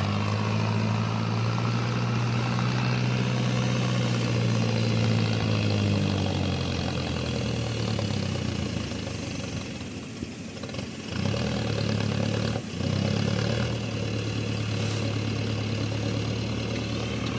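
Diesel engine of heavy earthmoving machinery running steadily. Its note falls away about ten seconds in and comes back up after a couple of seconds.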